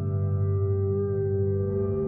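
Ambient background music: slow, sustained chords of held tones with no beat.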